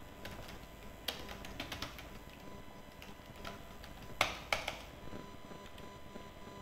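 Computer keyboard keys being typed: scattered, irregular key clicks, with a quick run of clicks early and a few louder key presses about four seconds in.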